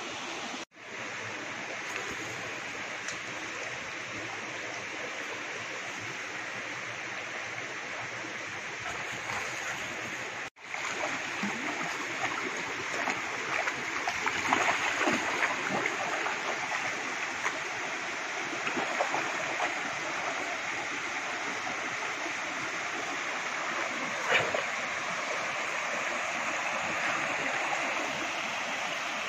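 Shallow rocky river running steadily, with splashing as a Rottweiler wades through the water. The sound cuts out briefly twice and is louder after the second break.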